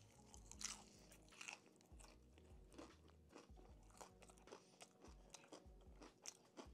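Mouth sounds of chewing a bite of crispy Jollibee fried chicken: faint, irregular crunches of the breading, roughly one a second.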